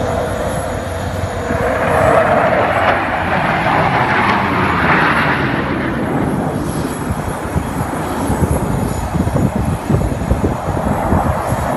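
Jet engine noise from a formation of fighter jets flying past overhead. The rushing sound swells to its loudest a few seconds in, then thins into a rough low rumble.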